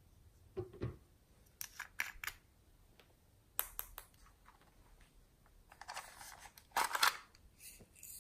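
Clicks and taps of a small plastic pot of glitter being handled, then a rustling scatter as glitter is tipped and shaken out of it onto the slime, loudest about seven seconds in.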